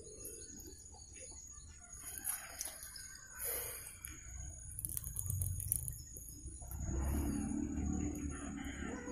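Faint outdoor ambience with birds calling, a steady high whine throughout, and a short run of clicks about five seconds in. A louder low sound joins about seven seconds in.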